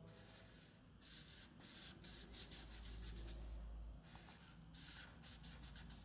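Felt-tip marker scratching back and forth on paper while colouring in, a quick run of short faint strokes from about a second in until near the end.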